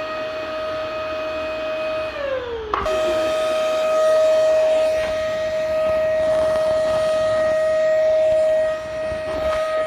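Vacuum cleaner motor running with a steady high whine over a rush of air. About two seconds in, the whine sags lower in pitch, then abruptly jumps back to full pitch and holds steady.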